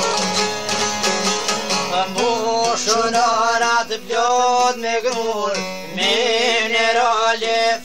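Albanian folk song from Kosovo on plucked long-necked lutes. Quick plucked notes come first, and from about two seconds in a male voice sings long, ornamented held notes over a steady low drone.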